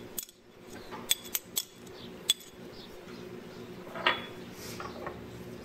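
A metal spoon and a small container clinking against a ceramic bowl as sauces are measured in. There are several sharp clinks in the first couple of seconds, then a longer scrape about four seconds in.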